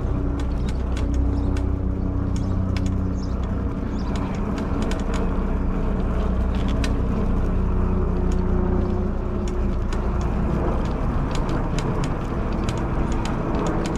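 Modded fat-tire e-bike being ridden along. There is a steady low rumble, a motor hum that shifts slightly in pitch, and scattered light ticks throughout.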